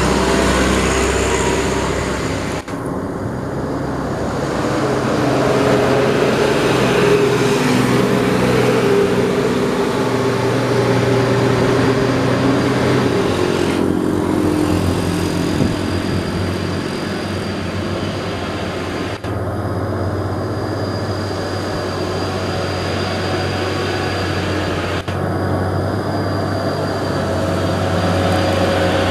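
Heavy diesel engine of a Mitsubishi Fuso 220 PS six-wheel box truck labouring uphill at crawling speed, its pitch rising and falling slowly as it pulls, with the sound breaking off abruptly a few times.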